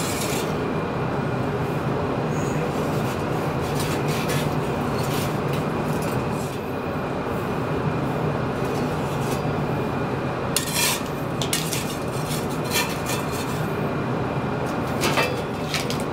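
A long metal oven tool scraping and clinking on the stone hearth floor of a wood-fired oven as logs are pushed into place, with sharp clinks and knocks mostly in the second half. A steady mechanical hum runs underneath throughout.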